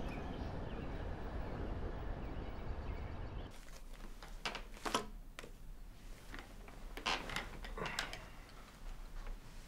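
Steady outdoor background noise that cuts off about three and a half seconds in, giving way to quiet room tone. Over the room tone come a few faint rustles of paper and light knocks as papers are handled and set on a small table, the sharpest about five seconds in.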